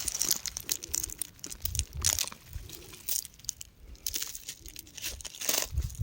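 Rocks crumbling and crunching in a dense, irregular run of crackles and gritty clicks, with a few louder bursts.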